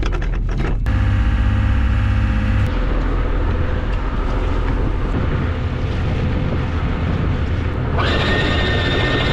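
A motor running steadily, with a higher whine setting in about eight seconds in.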